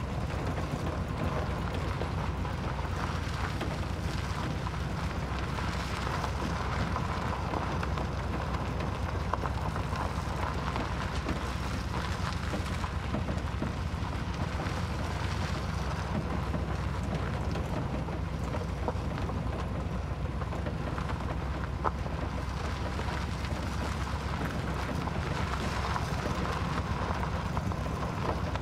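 Steady low rumble and rushing road noise of a pickup truck driving slowly over dirt and cobbled road, heard from the open truck bed, with one brief click about three-quarters of the way in.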